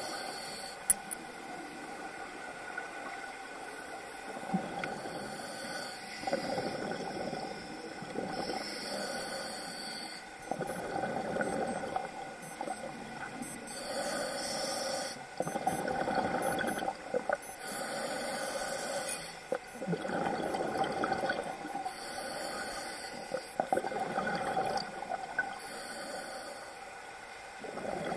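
Scuba regulator breathing underwater: a hiss on each inhalation alternating with a burst of bubbling on each exhalation, about one breath every four to five seconds.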